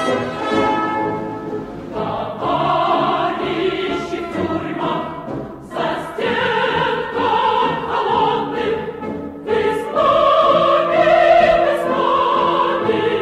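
Background music: a choir singing sustained notes over an orchestra.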